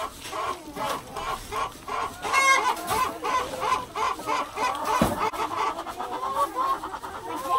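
A flock of laying hens clucking together, a dense run of short repeated calls, with one higher-pitched call about two and a half seconds in.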